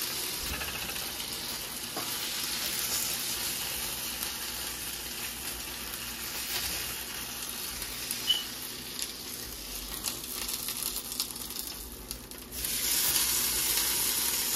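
Sauce-dipped tortilla taco with cheese and chicken sizzling as it fries in a nonstick pot, a steady hiss that gets louder about twelve seconds in.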